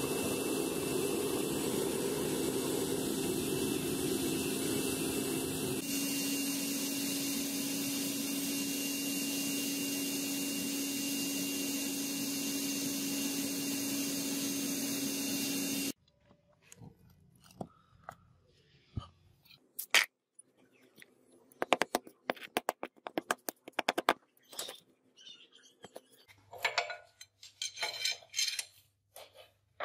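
Gas burner of a small crucible furnace melting brass, a steady loud rushing noise with a low hum underneath. It cuts off abruptly about halfway through, and light metallic clicks and clinks follow as the cast brass guard is handled against the steel blade.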